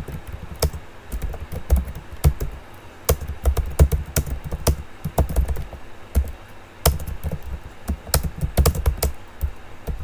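Typing on a computer keyboard at a steady, unhurried pace: irregular key clicks, several a second, with dull low thuds beneath them.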